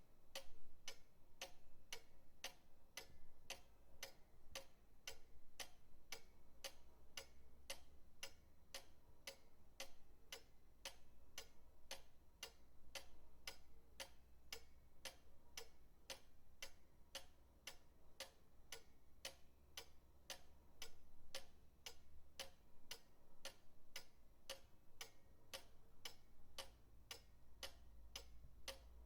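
Pendulum clock ticking steadily, about two even ticks a second, with a faint low rumble underneath.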